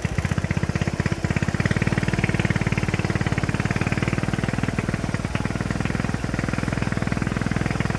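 Motorcycle engine running while riding, its exhaust beating in rapid, even pulses.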